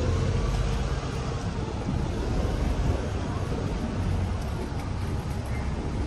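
Street ambience: a steady low rumble of traffic, with wind on the microphone.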